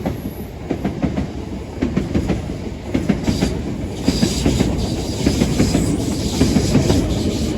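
Class 377 Electrostar electric multiple unit running past, its wheels clattering rhythmically over rail joints, and a high hiss joins the rumble about three seconds in as it gets louder.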